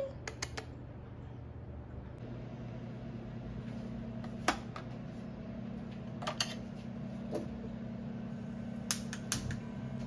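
Kitchen handling sounds over a steady low hum: a frying pan knocked onto a gas stove grate, then a few sharp clicks near the end as a gas burner is lit.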